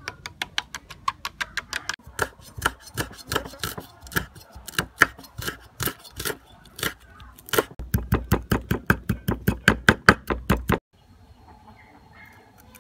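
Cleaver chopping fresh red chillies on a wooden chopping block: quick, even knocks about five a second, heavier and a little faster in the last few seconds, stopping suddenly near the end.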